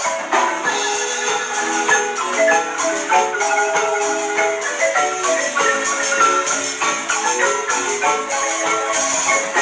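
Marimba music playing, with quick runs of mallet notes over a steady accompaniment.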